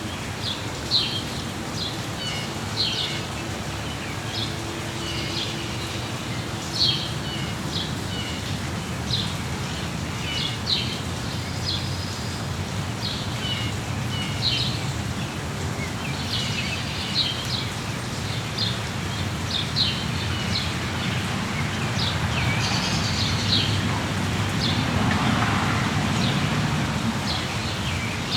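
Birds chirping repeatedly in short high notes over a steady patter of rain, the rain swelling a little louder in the second half.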